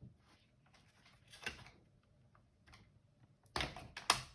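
Light clicks and knocks of the robot vacuum's plastic housing and parts being handled, with two louder sharp knocks near the end.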